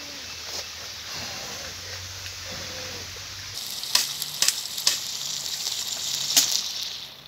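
Chicken pieces sizzling in hot oil in a small pan over a wood fire, a steady frying hiss. In the second half come several sharp crackles and pops, the loudest one near the end.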